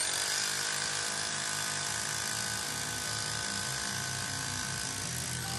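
Handheld electric jackhammer running steadily, its bit pounding at a fast rhythm into the clay bank to dig out a slot for a retaining-wall deadman.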